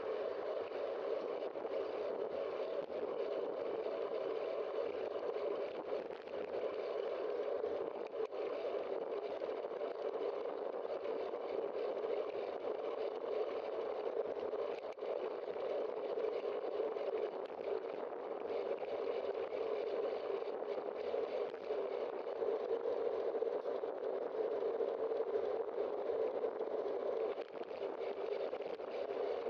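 Steady rushing wind and road noise of a bicycle in motion, picked up by a bike-mounted camera, with no distinct events.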